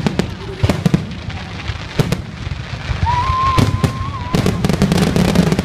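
Aerial fireworks display: a rapid, irregular run of sharp bangs and crackling bursts over a low rumble, with a thin steady whistle held for just over a second around the middle.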